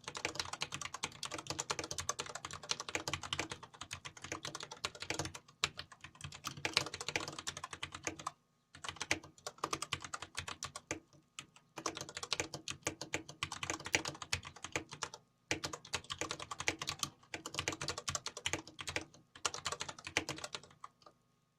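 Fast typing on a DNS K-1 Extreme mechanical keyboard with Cherry MX Black linear switches: quick runs of key presses in stretches of a few seconds, with short pauses between them.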